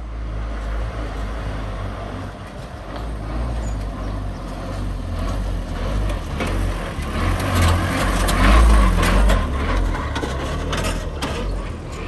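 JCB 3DX backhoe loader's diesel engine working under load. It swells in the middle with a rising and falling pitch, and a run of metallic clanks and knocks comes in the second half.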